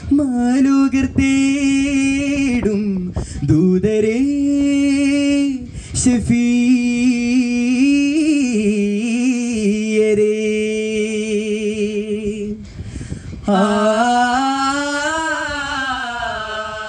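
A male voice singing a Vattappattu song in long held notes, wavering and ornamented, with short breaks for breath about three, six and thirteen seconds in.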